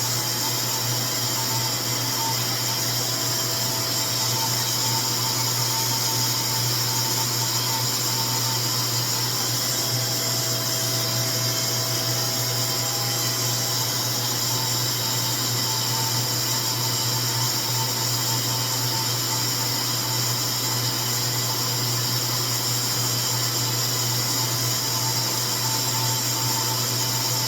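RevAir reverse-air hair dryer running steadily, its suction motor drawing a section of hair into the drying tube.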